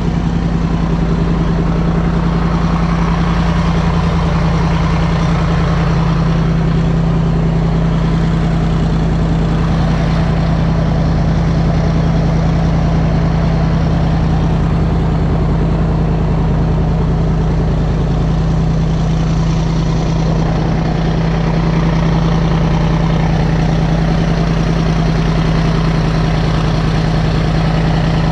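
A riverboat's engine running at a steady cruising speed, a loud continuous drone with a strong low hum, over the rush of churning water from the wake.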